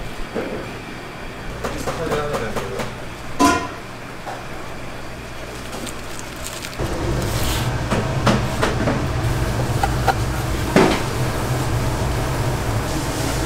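Busy food-stall ambience: a steady low machine hum that becomes louder about seven seconds in, with scattered clinks and knocks and faint voices.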